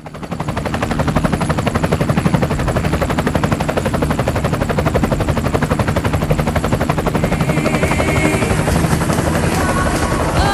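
Helicopter rotor sound: a fast, steady chopping beat with a low hum underneath, fading up quickly at the start. Pitched music notes come in over it near the end.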